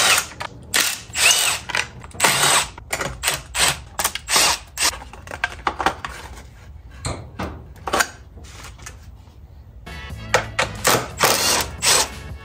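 Handheld power tool running in many short bursts, with a brief whine about a second in, over background music.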